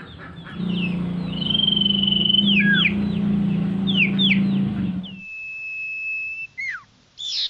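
Male common iora (sirtu) whistling its 'nyiul' call: a long held whistle, then several sharp down-slurred notes, then another long level whistle, with a quick run of notes starting at the very end. Under the first part runs a loud low steady hum that stops about five seconds in.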